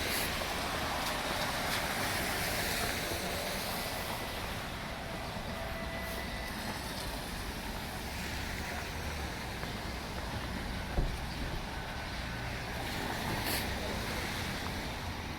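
Downtown street traffic: a steady rush of passing vehicles, with a single short knock about eleven seconds in.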